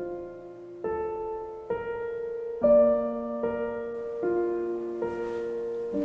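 Background piano music: a slow, gentle melody, one new note struck about every second.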